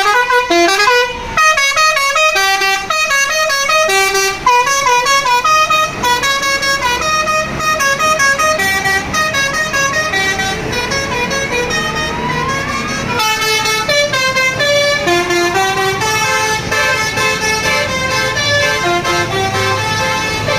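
Bus telolet basuri horn playing a melody in quick, stepped notes. About halfway through, a tone slides steadily upward, and a low engine rumble sits under the horn in the second half.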